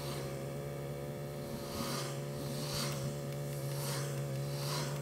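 Motorcycle engine running at a steady speed while riding, with hissing whooshes about once a second over it.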